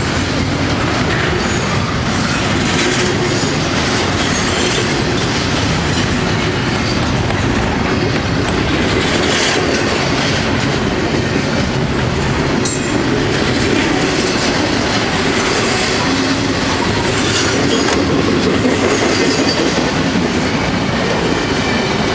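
Freight train cars rolling steadily past at a grade crossing, wheels clattering over the rail joints, with a few sharp metallic clanks, the clearest about halfway through.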